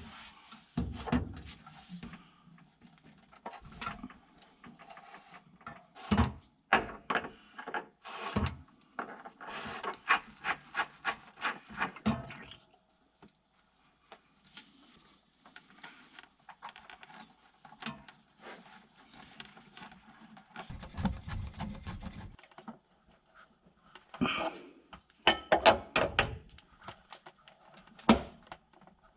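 Wrench and metal plumbing fittings being handled as a fitting is taken off and tightened up: scattered clicks, knocks and scraping, with a quick run of clicks in the middle and a short low rumble later on.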